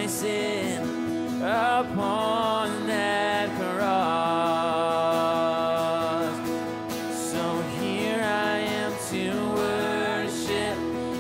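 Live contemporary worship song: a woman sings the lead over strummed acoustic guitar and band, holding one long note in the middle.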